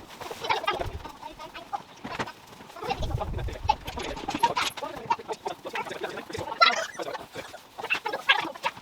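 Chickens clucking, many short irregular calls, with a brief low rumble about three seconds in.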